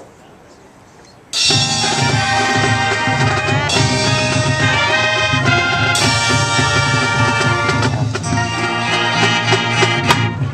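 A high school marching band comes in all at once about a second in and plays loud brass chords over drums and percussion, with fresh chord entries every couple of seconds.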